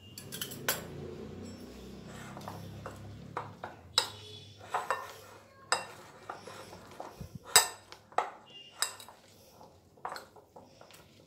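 Steel spoon clinking and scraping against a bowl while stirring cauliflower florets into a thick coating of flour, spices and a little water. There are irregular clinks and knocks, a few of them louder.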